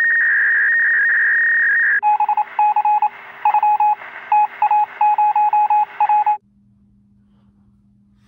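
Electronic telephone-line tones: a steady high tone for about two seconds, then rapid rhythmic beeps over a hiss that cut off suddenly about six seconds in, leaving a faint hum.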